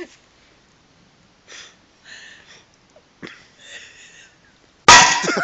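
A claw hammer strikes a nail in a wooden beam with one loud blow near the end, after a light tap about three seconds in and a few quiet breaths.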